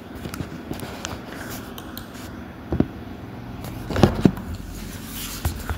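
Steady room noise with a few brief knocks or clicks; the loudest are a pair close together about four seconds in.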